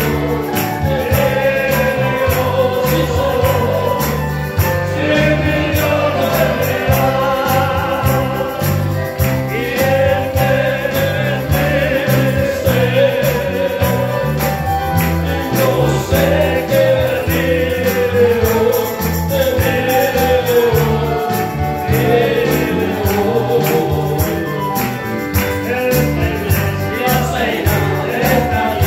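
Christian worship song played by a band: a group of voices singing a melody over a steady bass line.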